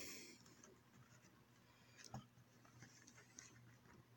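Near silence with faint scratching and small ticks from handling a boxed car radio in its plastic wrapping, one slightly louder tap about two seconds in.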